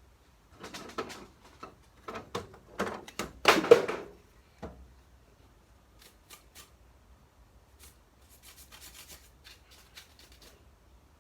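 Irregular rubbing and scraping as vacuum motor parts are handled and worked by hand, loudest about three to four seconds in, followed by a few light clicks and softer scratching.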